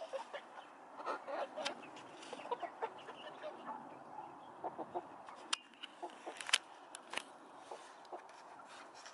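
A small flock of hens clucking with short, scattered calls while pecking at feed on the ground, with sharp ticks from beaks striking the ground, the loudest few about two thirds of the way through.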